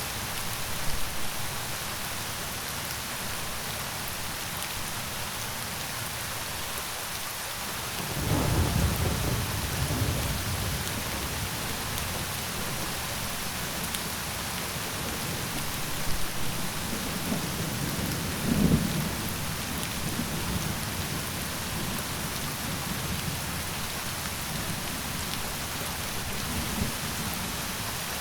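Steady rain falling, with thunder rumbling twice: a low roll about eight seconds in, and another later with a sharper clap near eighteen seconds in.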